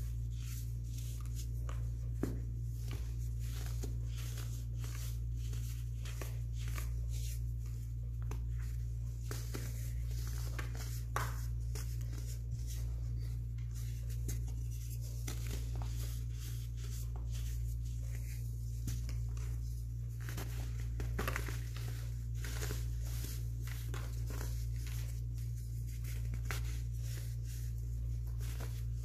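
Dyed blue baking soda chunks crushed and crumbled by hand, a dense run of soft, dry crunches and powdery crackles with irregular sharper snaps. A steady low hum sits underneath.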